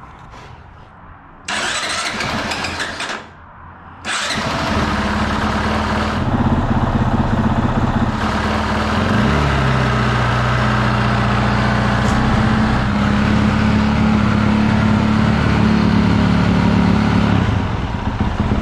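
A 2022 Honda CRF450R's 450cc single-cylinder four-stroke engine being started cold on its choke: a first burst of cranking dies away after a couple of seconds, then on the second try, about four seconds in, the engine catches and settles into a steady fast idle, its pitch stepping up a little partway through.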